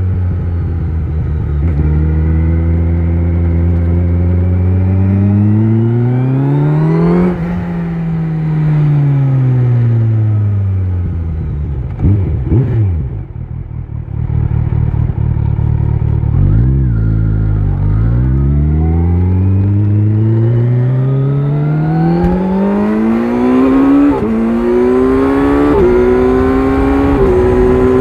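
Kawasaki Z900 inline-four motorcycle with an Akrapovic exhaust under way: the engine note climbs under acceleration, eases off and falls back to a low rumble near the middle, then climbs again. There are upshifts, each a sudden drop in pitch, near the end.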